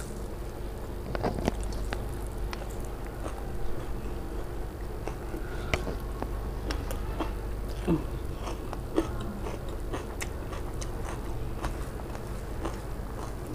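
Close-up eating by hand: fingers mixing puffed rice and spicy pea curry on a steel plate, then a mouthful chewed with wet smacks and crisp little clicks. A steady low hum runs underneath.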